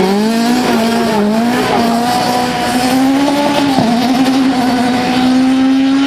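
Rally car engine held at high revs as the car slides through a loose gravel corner. Its pitch climbs over the first second, then holds nearly steady, over a steady hiss of tyres and gravel.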